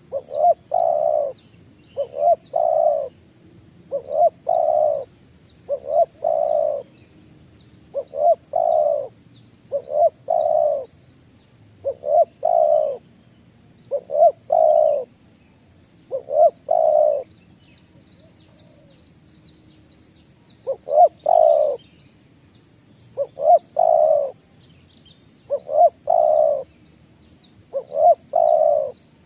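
A bird calling over and over, each call a short note followed by a longer one, about every two seconds, with a break of a few seconds partway through. Faint high chirps of smaller birds go on behind.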